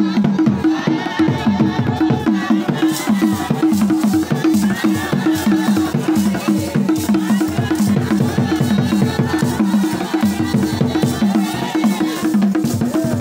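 Group of voices singing a church song to a steady drumbeat. Sharp percussive strokes join in about three seconds in.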